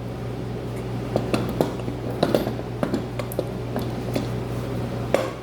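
Light metallic clinks and knocks of a lawn tractor's front wheel hub being handled and slid onto its greased spindle, over a steady low hum.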